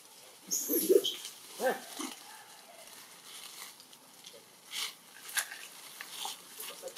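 Young long-tailed macaques giving a few short calls, the loudest about a second in, the others before about two seconds in. Quieter scattered clicks and rustles in the grass follow as a macaque forages.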